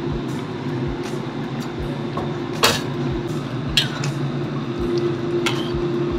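A spatula stirring thick coconut-milk beef curry in a black wok, with wet squelching and a few sharp clinks against the pan, the clearest about halfway through and near the end. A steady low hum runs underneath.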